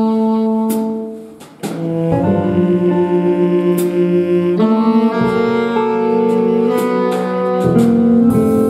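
A saxophone soloing with a jazz big band. A held note dies away about a second in, and after a short gap the saxophone comes back in with a run of notes over the band.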